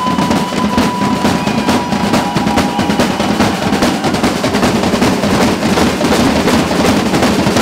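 Street drum band of snare and marching drums played with sticks, keeping up a fast, steady rhythm. A thin steady high tone sounds over the first three seconds.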